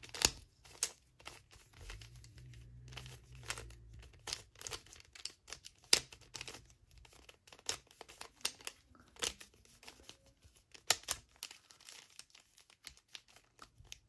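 Mirror cube being turned by hand: a run of irregular clicks and clacks as its layers are twisted, a few turns landing much louder than the rest.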